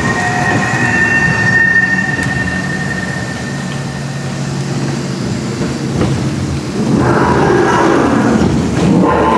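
Sound effects of an animatronic dinosaur dark ride: a loud, steady rumble. A high, steady tone fades out over the first two seconds, and the rumble swells louder about seven seconds in.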